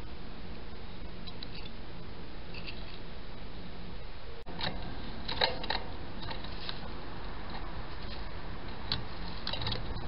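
Steady hum and hiss of a small camera's microphone, broken by a short dropout about halfway through. After it come scattered small sharp clicks and taps, in little clusters, from a bird on the wire-mesh peanut feeder.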